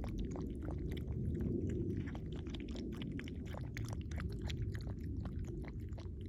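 A puppy eating wet, freshly mixed food: quick, wet mouth clicks and smacks, several a second, over a steady low rumble.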